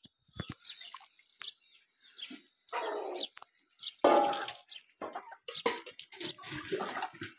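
Cold water splashing from a steel mug onto boiled rice spread on a cloth, to cool it. Chickens cluck in the background.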